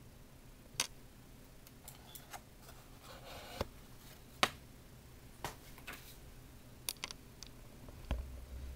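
Faint, irregular small clicks and ticks, about a dozen, the sharpest about four and a half seconds in, with a soft rustle about three seconds in and a low rumble starting near the end.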